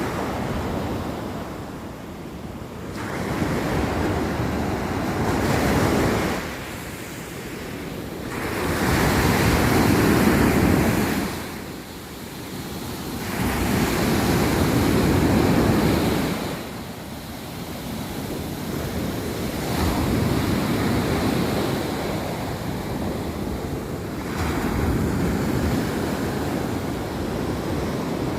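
Sea waves breaking and washing in surges that swell and fade every few seconds, with wind buffeting the microphone.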